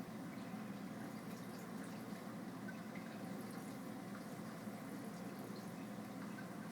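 Steady bubbling and trickling of a saltwater aquarium's circulating water, with faint scattered ticks.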